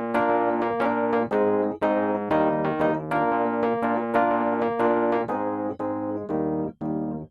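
Background keyboard music: a piano-like instrument playing a steady run of notes.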